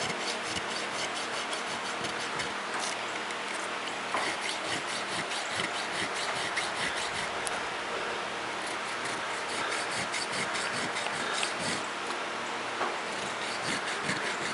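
A hand file rasping in repeated push strokes across the bronze bolster of a knife held in a vise, cutting decorative file work: a steady run of short scraping strokes.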